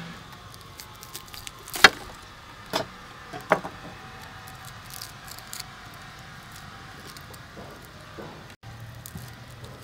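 Three sharp clicks of a knife on a plate and table, about two to three and a half seconds in, the first the loudest, followed by faint ticking as roasted shallots are peeled by hand.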